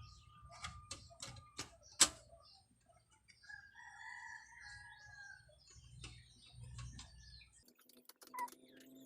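A rooster crows for about two seconds in the background, amid a run of small clicks and knocks from stove parts being handled, with one sharp loud click about two seconds in. Near the end a steady buzz starts.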